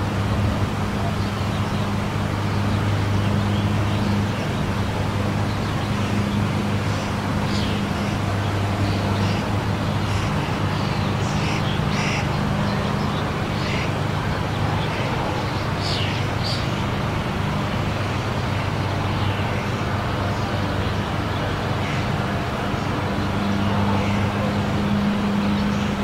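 Monorail car running along its track with a steady low motor hum, its deep drone shifting slightly in tone partway through. A few short high chirps come and go near the middle.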